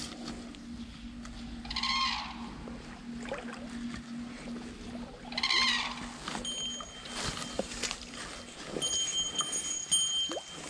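Two short wavering animal calls about three and a half seconds apart, over a faint steady hum.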